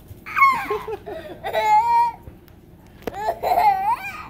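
A young boy laughing in three high-pitched bursts.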